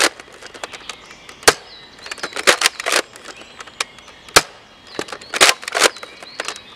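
Nerf Modulus Recon MK II spring-powered blaster firing foam darts. There is a sharp snap about one and a half seconds in and another past the middle. Between the shots comes a pair of rattling strokes as the priming slide is pulled back and pushed home.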